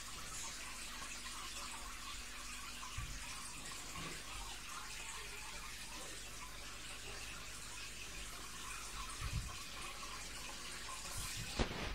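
Steady trickling of water circulating in a fish tank, with a few soft low thumps and a sharp knock near the end.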